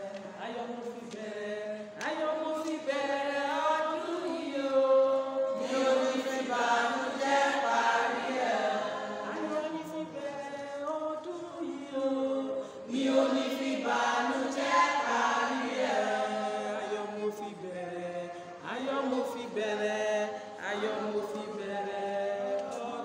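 A congregation of women singing a hymn or chorus together, in long held notes.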